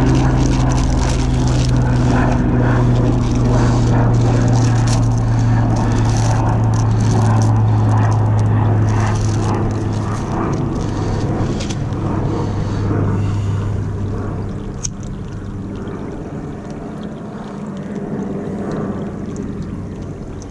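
A loud, steady, low mechanical hum like a passing engine that fades away from about fourteen seconds in. Over it, a plastic bag crinkles as it is handled, and there is one sharp click about fifteen seconds in, as a plastic lighter is struck.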